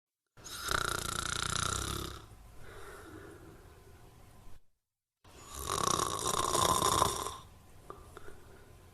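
A person snoring: two loud snores about five seconds apart, each trailing off into quieter breathing, with a moment of dead silence between them.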